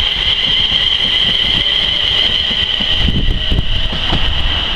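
London Midland Class 350 Desiro electric multiple unit trains running on the line: a steady rumble of the train with a steady high-pitched tone over it, the low rumble growing heavier about three seconds in as a unit approaches.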